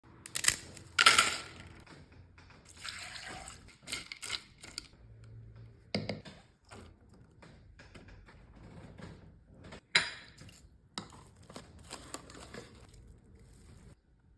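Kitchen prep sounds: scattered clinks and knocks of utensils and containers, with short stretches of liquid being poured or splashed.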